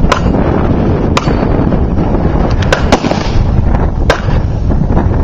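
Gunshots at a 3-gun match stage: about six sharp cracks at uneven spacing over five seconds, a few close together near the middle, over a loud continuous low rumble.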